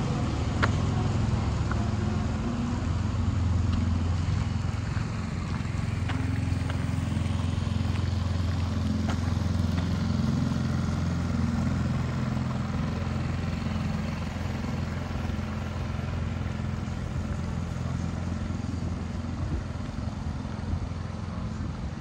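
A vehicle engine running steadily at low revs, a continuous low hum that eases off slightly in the last few seconds.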